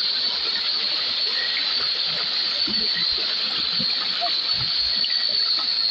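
Shallow stream water running over rocks, a steady rushing hiss, with a constant high-pitched whine over it.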